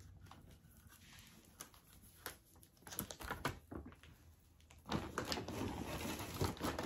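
Rustling and light tapping of items and packaging being handled, with scattered clicks, growing louder and denser about five seconds in.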